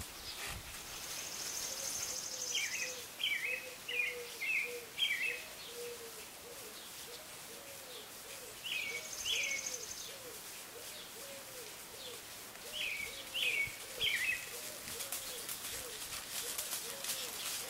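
Songbirds singing: short phrases of a few quick chirps every few seconds, over a steady string of low, evenly repeated tones.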